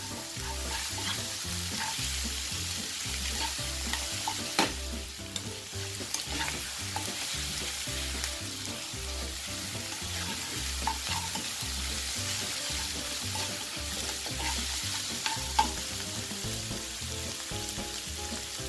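Beef ribs and aromatics sizzling in hot oil in a nonstick pan while being stirred with a metal spoon, with occasional clicks and scrapes of the spoon against the pan.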